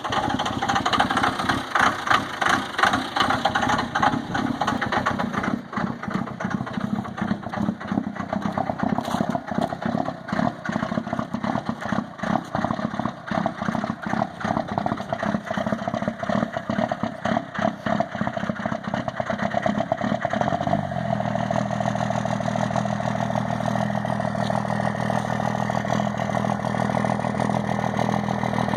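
An engine running unevenly, with irregular stumbling pulses, then settling into a steady, even idle about 21 seconds in.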